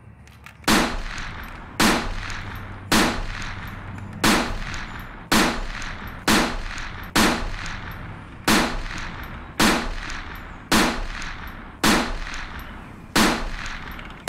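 Toy shotgun's gunshot sound effect: a sharp bang with a long fading echo, repeating evenly about once a second, twelve times.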